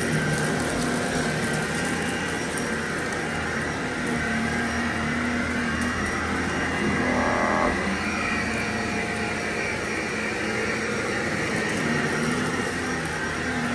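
Vacuum cleaner running steadily, its motor tone shifting a little in pitch as it is worked back and forth.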